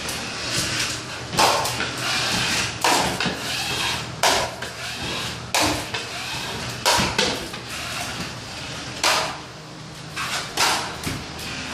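Metal drywall knife scraping joint compound along paper tape in a wall-to-ceiling corner, in sharp repeated strokes about one every second and a half.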